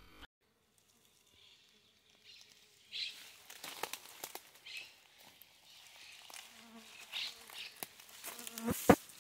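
Insects buzzing in short repeated bursts, with scattered light clicks and a sharp knock near the end.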